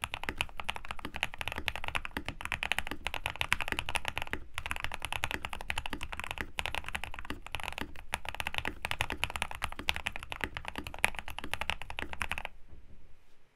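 Fast continuous typing on a custom mechanical keyboard with lubed Durock Moss linear switches, PBT keycaps and an aluminium plate, foam-dampened inside the case, giving a dense stream of muted keystrokes. The typing stops suddenly near the end.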